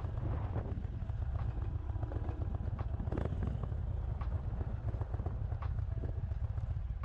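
Indian Chief's V-twin engine running at low speed with a low, rapid beat as the motorcycle rolls along a dirt shoulder.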